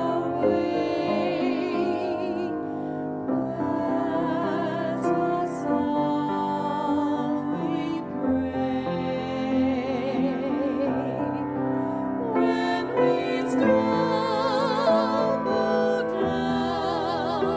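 Closing music after the dismissal: a melody line with strong vibrato over sustained, slowly changing chords.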